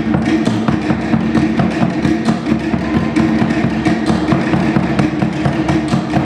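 Polynesian drum ensemble playing a fast, even beat on large skin drums and wooden percussion, the accompaniment for a Tahitian-style solo dance.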